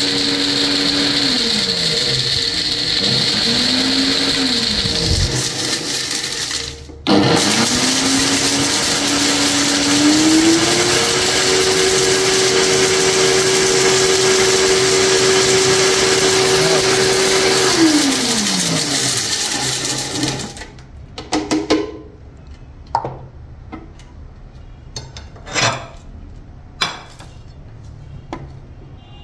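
Heavy-duty countertop blender motor running with plastic animal toys in the jar, its whine sliding down and up as the speed is changed, winding down and stopping about five seconds in. It starts again, holds a steady higher pitch, and winds down about two-thirds of the way through, followed by scattered knocks and clatter as the plastic jar is handled and lifted off the base.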